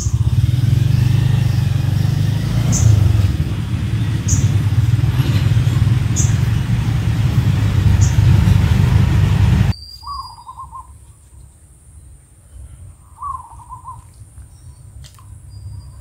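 A steady low rumble with faint ticks about every second and a half, which cuts off suddenly a little over halfway through. Then, in the quiet, a bird gives two short warbling calls, with a couple of brief high chirps.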